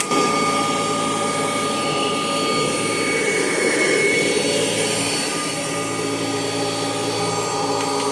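1984 Kirby Heritage 2 upright vacuum cleaner running, a steady motor whine.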